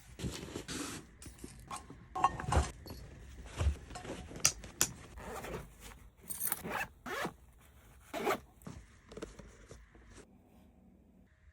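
Zipper on a cat backpack carrier being pulled in a series of short, irregular zips that die away near the end.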